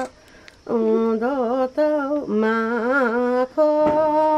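An elderly woman singing a traditional Nepali folk tune unaccompanied, in long held notes with wavering, ornamented turns. She comes in a moment after the start and breaks twice for short breaths.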